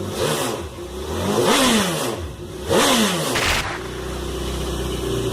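An engine revving: its pitch climbs and falls twice in quick succession, then it runs at a steady pitch.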